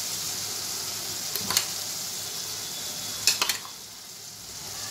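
Chopped spinach, onion, capsicum and corn sizzling steadily in butter in a frying pan. A spoon clicks against the pan once about a third of the way in and a few times more past the middle. The sizzle then drops lower for about a second.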